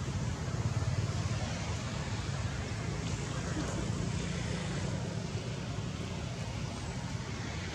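Steady outdoor background rumble with a constant hiss, without clear breaks or single events.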